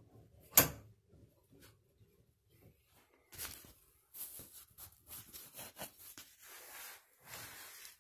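Handling noise: one sharp knock about half a second in, then a run of rubbing and scraping from about three seconds on.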